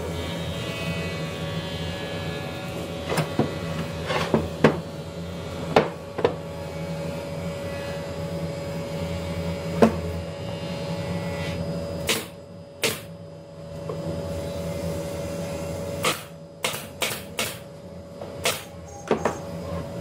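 A pneumatic brad nailer firing nails into wooden cabinet panels: a dozen or so sharp cracks at irregular intervals, several in quick succession in the second half, over a steady hum.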